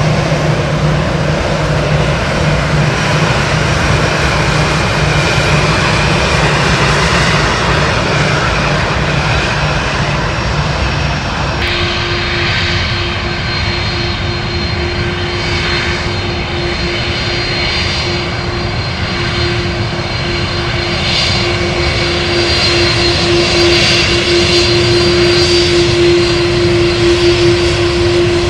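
Jet engines of an Airbus A320-214 running at taxi power, a steady low hum. About twelve seconds in, the sound switches abruptly to the engines of a taxiing Airbus A330-200, with a steady higher-pitched hum and a faint high whine.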